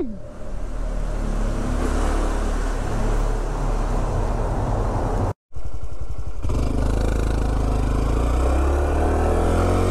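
Honda CT125's single-cylinder four-stroke engine running as the bike is ridden, with wind and tyre noise. The sound cuts out for a split second about halfway through, then the engine carries on.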